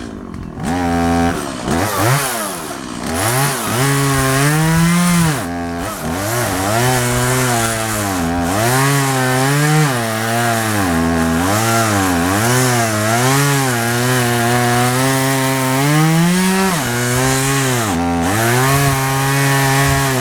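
Two-stroke chainsaw cutting into a juniper trunk, its engine pitch repeatedly sagging and recovering as the chain bites under load, with a brief drop near the start before it revs back up.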